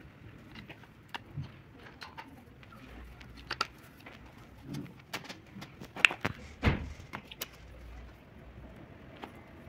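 Parts of a car starter motor being handled and fitted back together by hand: scattered metal clicks and knocks, with a louder cluster of knocks about six to seven seconds in.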